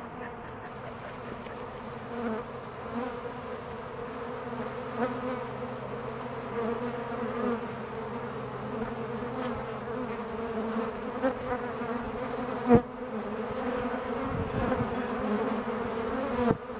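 A crowd of honeybees buzzing around a saucer of sugar water, a steady drone, with one sharp tap about thirteen seconds in.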